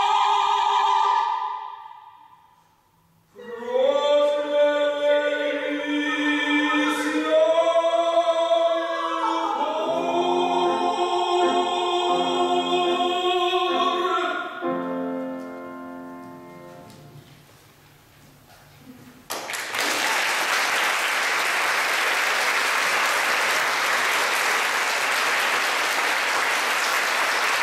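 Woman and man singing the close of an operatic duet with grand piano accompaniment: after a brief pause they sing a last phrase together and hold the final note, and the piano chord dies away. The audience then breaks into steady applause.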